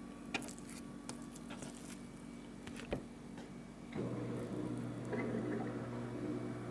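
Soft wet taps and a few sharp clicks of raw rabbit meat and backbone being handled on a plastic cutting board. About four seconds in, a steady low hum starts up and holds.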